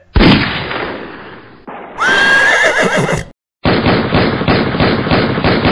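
Cartoon horse sound effects: a sudden loud sound at the start that fades away, then a horse's whinny about two seconds in, then galloping hoofbeats at about four a second.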